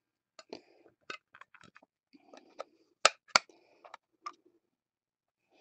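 Light clicks and taps of a clear plastic magnetic card holder being handled, with two sharp snaps about a third of a second apart about three seconds in.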